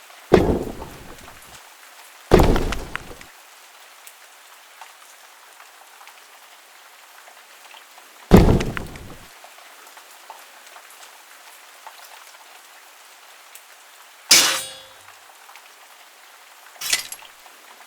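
A series of five separate heavy impact sound effects, each a sudden hit that dies away within about a second, spaced a few seconds apart over a steady rain-like background ambience. The fourth hit is sharper and brighter, with a brief ringing tone.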